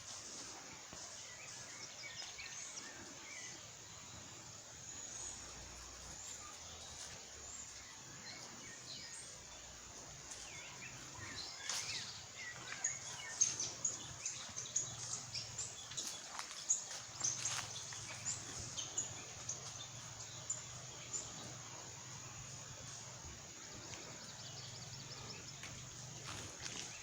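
Birds chirping over a steady outdoor hiss, with a run of sharp knocks through the middle.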